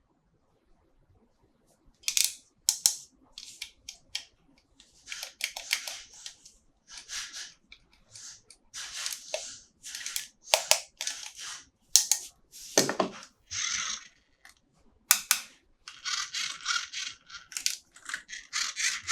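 Toy packaging being handled during an unboxing: short, irregular bursts of rustling and crinkling mixed with sharp clicks, starting about two seconds in, with one duller knock about two-thirds of the way through.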